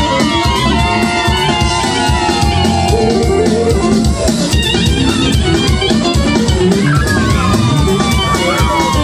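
Dance music with a steady drum beat under a lead melody line that slides and bends in fast ornaments.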